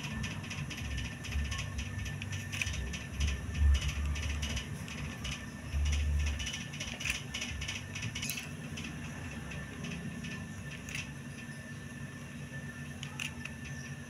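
Hot glue gun in use on cardboard: its trigger and feed mechanism clicking in quick runs, with a few low knocks of handling.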